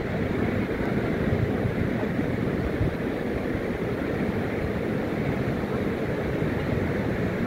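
Wind buffeting a smartphone microphone as a steady low rumble, over the continuous wash of surf breaking on the beach.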